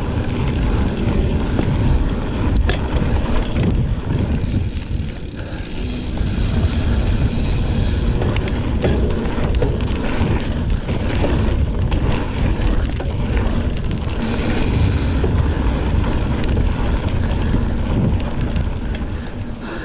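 Giant Fathom 29 2 mountain bike rolling along a dirt trail: steady rumble of wind on the microphone and tyre noise, with scattered rattles and clicks from the bike over rough ground.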